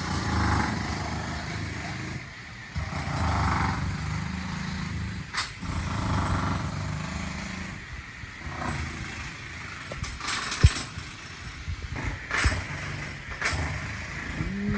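Rushing, falling water of a waterfall heard close up, an uneven low rumble and hiss with the water buffeting the microphone, and a few sharp knocks, the loudest about two-thirds of the way through.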